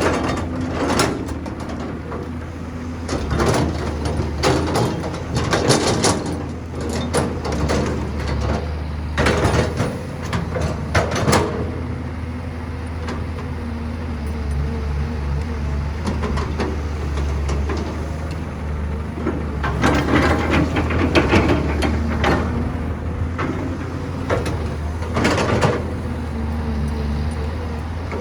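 Excavator and dump truck at work: a heavy diesel engine drones steadily while bursts of metallic scraping and clanking come and go every few seconds as the bucket digs and dumps dirt.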